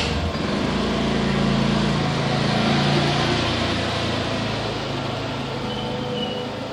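A motor vehicle's engine passing by, growing louder to about three seconds in and then fading. A sharp click sounds right at the start.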